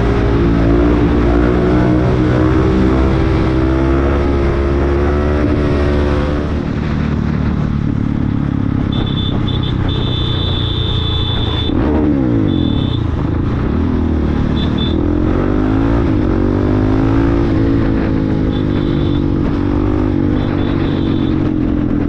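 Supermoto motorcycle engine running under way, its pitch dropping and then climbing again about halfway through as the rider changes speed. A thin high tone comes and goes twice over the engine.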